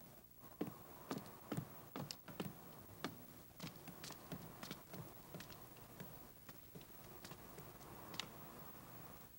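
Slow footsteps on a wooden floor: faint soft knocks and clicks, roughly two a second at uneven spacing, with a few sharper ticks among them.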